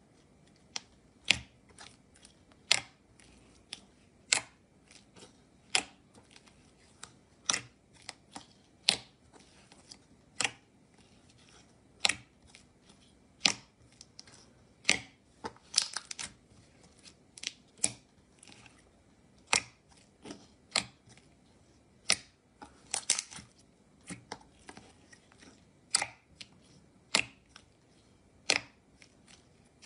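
White slime in a round tub being pressed and poked by fingers, giving sharp clicking pops about once a second, with quick bursts of several pops a little past the middle.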